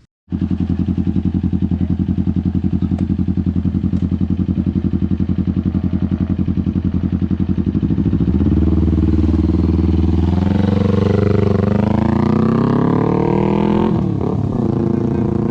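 Kawasaki Ninja 250's parallel-twin engine through an R9 GP SS aftermarket exhaust. It cuts in sharply and idles with a steady, pulsing note, then about halfway through is revved up gradually over several seconds and drops back toward idle near the end.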